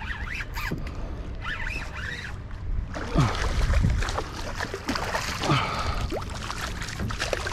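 Water sloshing and lapping against a kayak hull, with a steady low rumble of wind on the microphone and a few short falling squeaks. The splashing gets busier about three seconds in.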